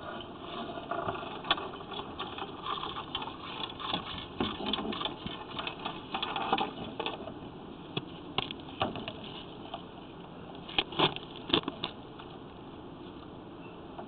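Irregular clicking, rattling and scraping from a sewer inspection camera's push cable being worked through the drain pipe, dying away near the end.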